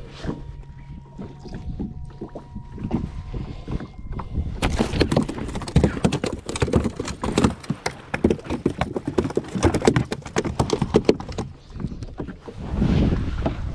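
A fast, irregular run of knocks and clatter on a jet ski's fibreglass deck as hands grab and handle gear. It begins about four and a half seconds in and stops shortly before the end. At the start there is a low steady hum.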